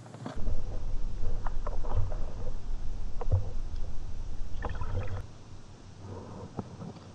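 Muffled low rumble of water moving around a submerged camera, with scattered clicks and ticks. It starts about half a second in and drops away about five seconds in.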